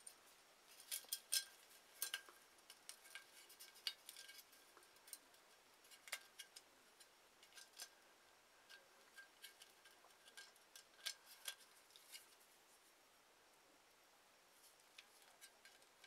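Faint, irregular small clicks and ticks of a new pull-chain light switch and its metal parts being handled as it is fitted through the light fixture base and secured. The clicks thin out near the end.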